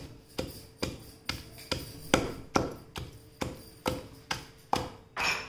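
A long wooden pestle pounding into a heavy stone mortar (rolu), a steady run of about thirteen strokes a little over two a second. It is crushing raw onion into cooked tomato paste for tomato roti pachadi.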